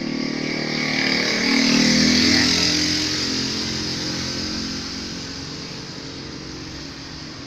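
Honda Vario 150 scooter's engine running, growing louder for about two seconds and then settling back to a steady run.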